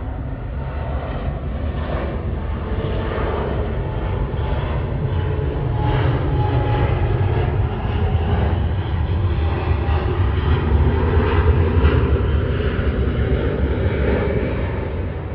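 Airbus A380 airliner climbing out after take-off: the deep, steady rumble of its four jet engines. It grows louder to a peak about three-quarters of the way through, then eases off near the end.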